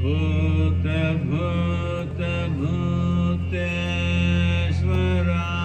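A voice singing a devotional chant in long held notes that glide from pitch to pitch, over a steady low drone.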